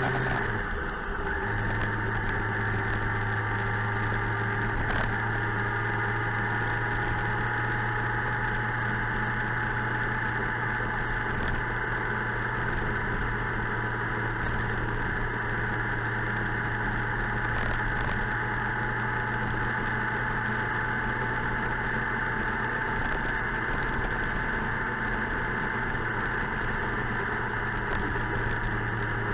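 Suzuki GSX-R 1000 inline-four engine running at a steady speed while riding, with a short dip and drop in pitch about a second in, like a gear change.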